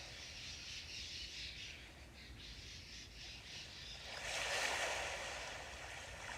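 Small sea waves washing on the shore, with one louder wave surging in about four seconds in and fading away.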